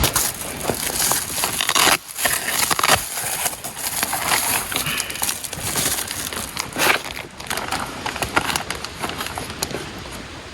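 Close rustling and crinkling with many irregular crackles, like something being handled or moved against a crinkly surface.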